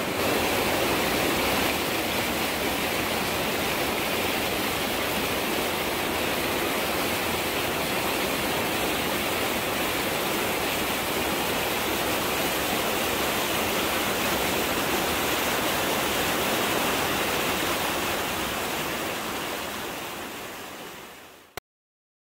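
Steady rush of water falling over a low basalt waterfall, fading out over the last few seconds and then cutting off.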